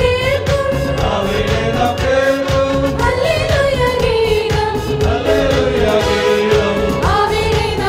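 A group of women and girls singing a Christian song together into microphones, sustained sung lines with a regular beat under them.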